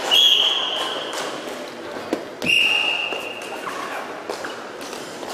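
A referee's whistle blown twice, two steady high blasts about a second long each, the first at the very start and the second about two and a half seconds in.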